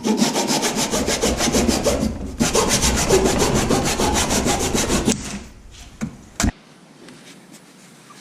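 Hand saw cutting through a wooden plug set in a filled hole in a workbench top, in quick back-and-forth strokes: about two seconds of sawing, a brief pause, then about three seconds more before it stops. One sharp knock follows about a second later.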